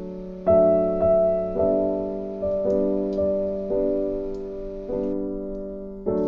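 Background piano music: soft chords struck about once a second, each note fading away before the next.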